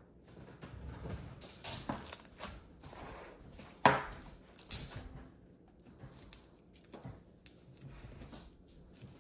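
Peachybbies Hello Hollow slime being squished and pressed into its tub by hand: irregular wet crackles and clicks of trapped air, with one sharp loud pop about four seconds in and a smaller one just after.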